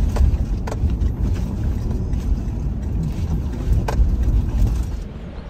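Car driving: a steady low rumble of engine and road noise, with a few short knocks, and it quietens about five seconds in.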